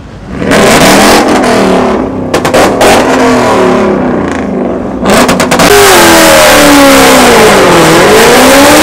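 Car engine revving hard, its pitch climbing and dropping over and over, with a few sharp crackles, then tyres screeching under a loud haze of noise as the car does a burnout from about halfway through.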